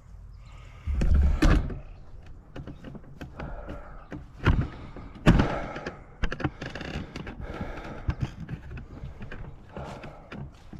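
A few dull thuds and knocks at irregular spacing. The loudest comes about a second in, with a deep rumble under it, and two more strong knocks follow about four and a half and five seconds in.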